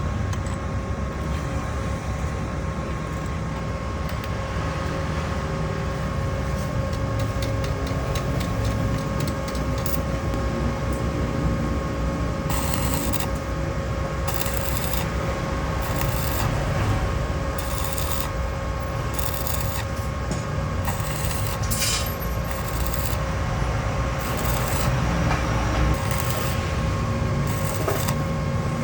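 Repair work on a motorcycle's stripped starter gear: repeated scraping and rubbing strokes of tools on metal over a steady hum, the strokes growing more frequent about halfway through.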